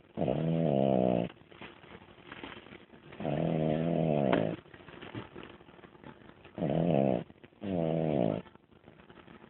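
A sleeping dog snoring: four loud, pitched snores, the last two close together.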